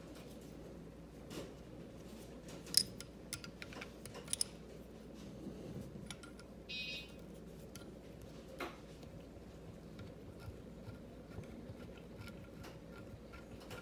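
Faint metal clicks and taps as an 8mm wrench works the float-bowl bolts loose on a Holley 4412 two-barrel carburetor and the bolts are turned out by hand. There is a sharp click about three seconds in, a few quicker clicks just after, and a brief high squeak around seven seconds.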